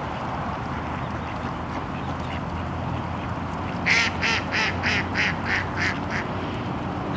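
Mallard quacking: a quick run of about eight quacks, roughly three a second, starting about four seconds in, the first one loudest. Underneath is steady low background noise.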